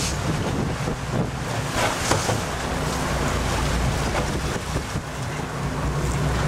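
Game-fishing boat's engine running steadily, under wind buffeting the microphone and the rush of sea water alongside the hull.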